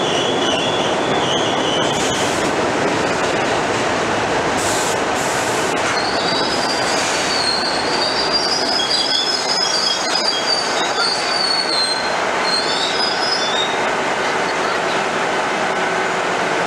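New York City subway train, R68 cars, pulling into the station and slowing to a stop: a loud, steady rumble of steel wheels on the rails. High-pitched squeals come briefly at the start and again from about six to fourteen seconds in as it brakes.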